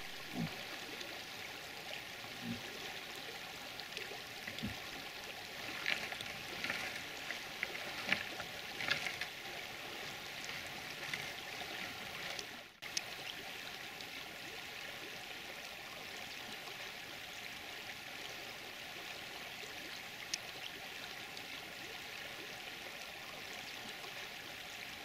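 Steady rush of running water, with a cluster of light snaps and rustles about six to nine seconds in.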